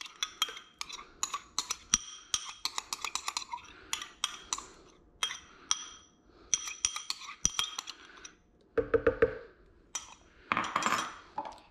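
Metal spoon scraping and tapping against glass while Dijon mustard is scraped out of a small glass bowl, a rapid run of sharp clinks that each ring briefly. A duller knock comes about nine seconds in, followed by more spoon scraping in a glass bowl.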